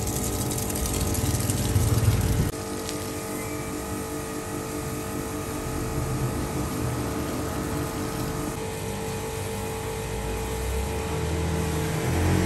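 Harley-Davidson Road Glide CVO's V-twin engine idling steadily, with a water jet spraying onto the engine for the first couple of seconds. The engine gets louder near the end.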